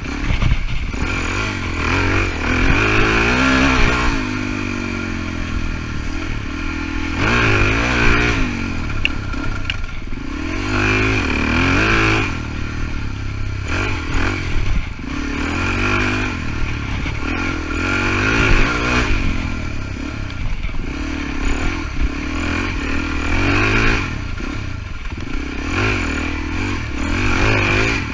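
Suzuki DR-Z400E's single-cylinder four-stroke engine on an enduro ride, revving up and easing off every few seconds as the rider works the throttle.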